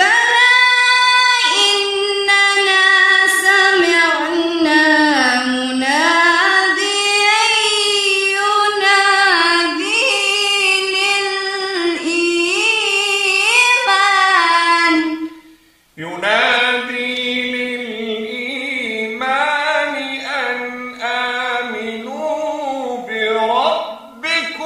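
Quran recitation chanted in tajweed style: a woman's voice holds long ornamented, gliding notes for about fifteen seconds. After a short break, a lower, duller-sounding voice chants the next phrase.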